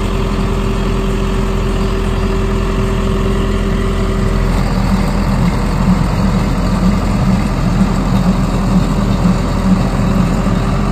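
John Deere tractor engine running steadily, growing a little louder and rougher from about halfway.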